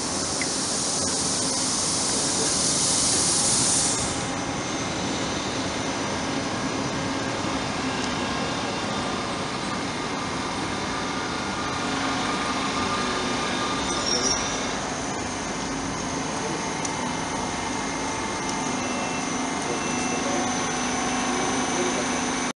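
MittelrheinBahn class 460 (Siemens Desiro ML) electric multiple unit rolling slowly into the platform, with a steady rumble of running gear and motors and a low hum. A loud high hiss fills the first four seconds and stops abruptly.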